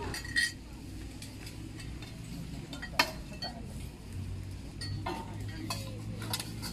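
Metal hoe and shovel blades scraping and clinking against the concrete drain and the debris in it, with a few sharp knocks, the loudest about three seconds in. A low steady hum comes in about four seconds in.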